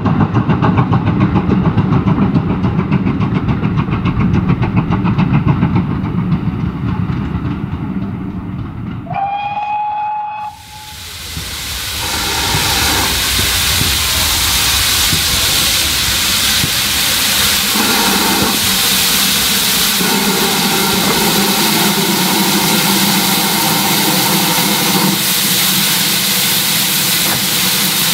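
A steam-hauled train runs past with a steady rumble. Near the middle the locomotive gives one steady whistle of about a second and a half. Then GWR 4575-class small Prairie tank engine 5526 stands with steam hissing loudly and evenly from the top of its boiler.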